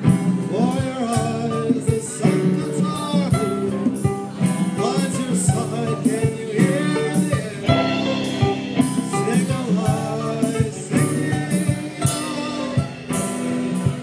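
Live band playing: a voice singing over acoustic guitar and a drum kit keeping a steady beat of about two hits a second.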